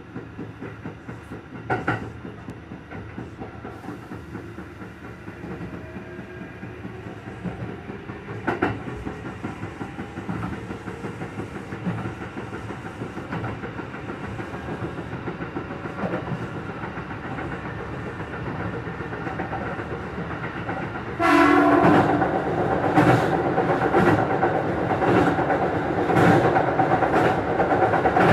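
Kintetsu Urban Liner limited express train running, heard from inside the driver's cab, its wheels clicking over rail joints. About three-quarters of the way through it gets suddenly louder, with a steady ringing hum and heavier knocks about once a second, as the train runs onto a steel truss bridge.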